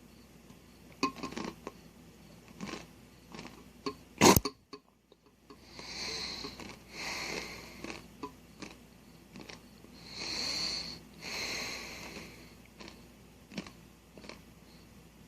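Someone eating from a bowl: a few light utensil clicks and one loud knock about four seconds in, then heavy breaths through the nose in two pairs while chewing.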